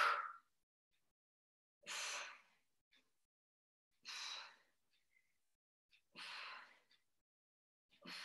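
A woman's faint breaths, four puffs about two seconds apart, keeping time with the reps of a single-leg oblique crunch.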